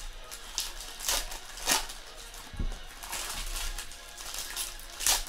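Foil trading-card pack wrappers crinkling and tearing as packs are ripped open by hand, with sharp rips about a second in, just under two seconds in, around three seconds and near the end.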